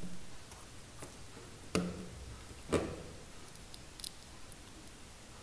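Light clicks and taps of an OLED display module's header pins being pressed into a plastic solderless breadboard. The two sharpest clicks come about a second apart in the middle, with a few fainter ticks around them.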